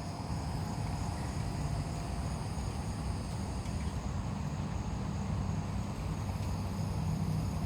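Insect chorus, a steady high-pitched trill, over a low rumble.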